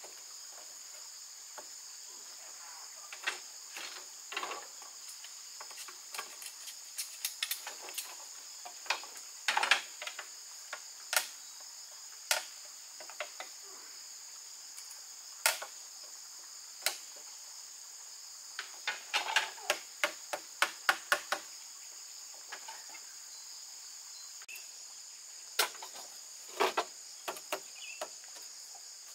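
A steady, high insect chorus of crickets or cicadas, with irregular sharp knocks and taps from hand work, bunched into a quick run of knocks in the second half.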